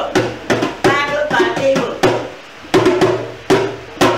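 Hand drum played with bare hands under a woman's singing, the 'bararam bum hum' that traditionally closes a Belizean Creole brukdown song. The singing fades after about the first two seconds and a few spaced drum strokes end the song.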